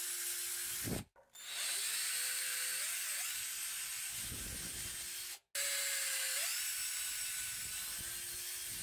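Cordless drill boring holes through the steel tang of an old meat cleaver: a steady motor whine with the bit grinding on metal, the pitch rising briefly twice. The sound cuts out completely twice for a moment.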